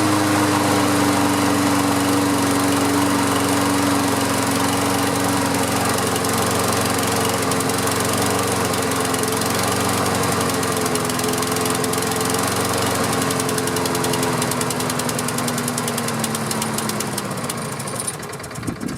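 Push lawn mower's small gasoline engine running steadily after a pull start, then slowing and dying near the end. It runs only on the fuel that tipping the mower let into the carburetor bowl, and it quits because, the owner reckons, the needle valve must be clogged.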